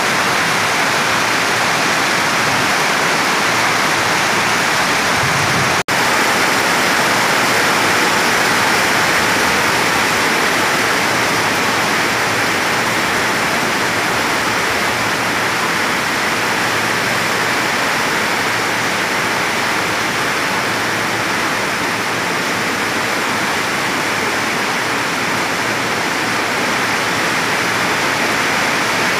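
Steady rushing hiss of heavy rain falling on the station roof and tracks, with one brief dropout about six seconds in.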